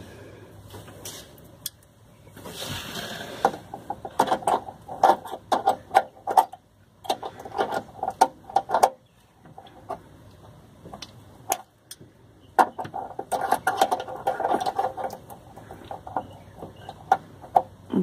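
A Swiss Army knife's screwdriver blade working the screw of a metal hose clamp: irregular small clicks and scrapes of metal on metal, in two busier spells, the second starting about two-thirds of the way through.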